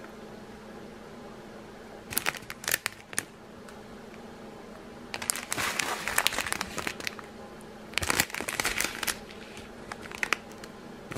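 Clear plastic bags of round resin diamond-painting drills being handled, crinkling in bursts: a few short crinkles about two seconds in, a longer rustling spell around six seconds, and another around eight seconds.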